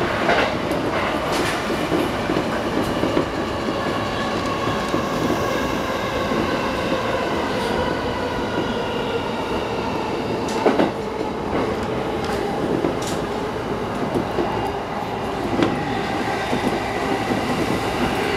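JR East E233-8000 series electric train running, heard from inside the front car: a steady rumble of wheels on rail under a faint motor whine, with a few sharp clicks from rail joints.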